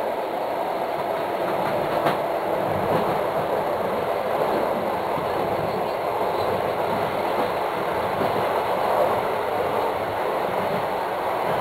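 Train running on the rails, a steady rumble of wheel and track noise with one sharp click about two seconds in.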